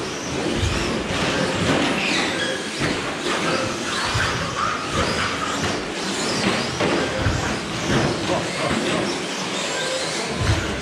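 Several electric 1/10-scale short course RC trucks racing on carpet: overlapping motor whines that rise and fall as they accelerate and brake, with frequent knocks and clatter from the trucks hitting each other and the track borders, echoing in a large hall.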